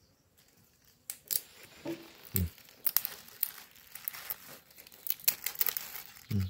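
Dry bean pods being split and shelled by hand over a plastic bag: brittle pods crackle and snap, and the plastic crinkles, in a busy run of small sharp clicks starting about a second in. A few dull thuds are mixed in.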